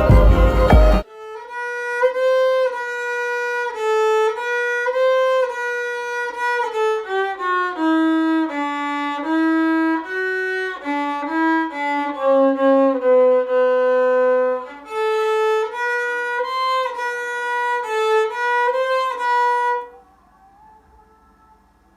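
Background music: a solo kamancheh (bowed spike fiddle) playing a slow melody of long held notes. It stops about two seconds before the end, leaving near silence.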